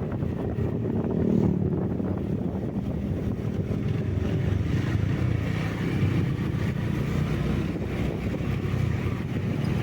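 Vehicle engine and road noise while driving, a steady low rumble.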